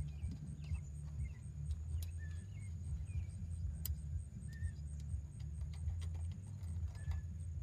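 A few short bird chirps over a steady low rumble, with a couple of sharp clicks in between.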